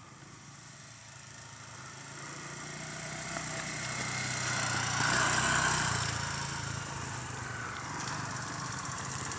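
Yamaha XTZ125 motorcycle's single-cylinder engine running as the bike passes, growing louder to a peak about five seconds in and then fading.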